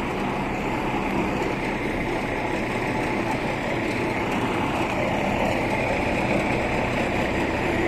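Steady mechanical drone with a low hum that holds unchanged throughout.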